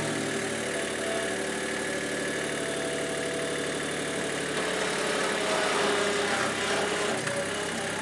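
Skid steer loader engine running steadily as the loader drives slowly up to the tractor, with a few faint clanks near the end.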